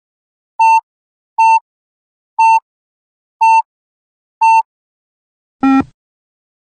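Yo-Yo test app beeps: five short high countdown beeps about a second apart during the rest interval, then one lower-pitched start beep near the end signalling the next shuttle run.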